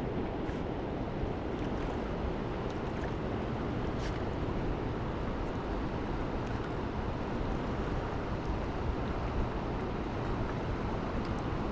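Steady rushing of fast river current, an even noise without any engine tone, with a couple of faint clicks near the start and about four seconds in.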